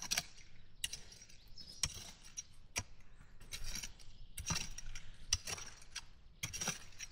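Hand tool scraping and pulling garden soil up against potato plants, with irregular knocks and scrapes about once a second.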